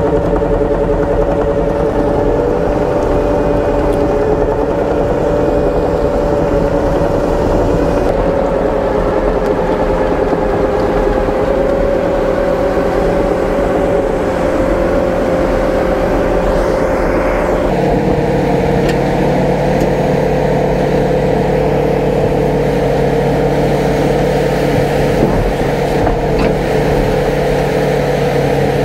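Case Minotaur DL550 compact dozer loader's diesel engine running steadily under load while the machine climbs onto a trailer deck, the engine note shifting a little past halfway through.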